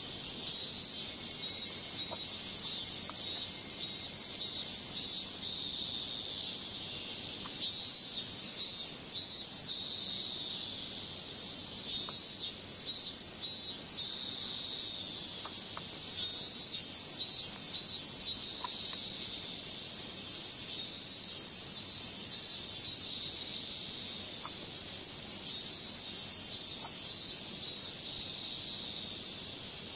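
Cicadas shrilling in a steady, high-pitched drone, with short phrases of rapid rhythmic pulsing coming in every few seconds.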